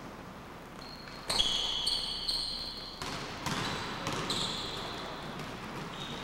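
Basketball sneakers squeaking on a hardwood gym floor, several short squeaks starting about a second in, with a basketball bouncing and footfalls in a large, echoing gym.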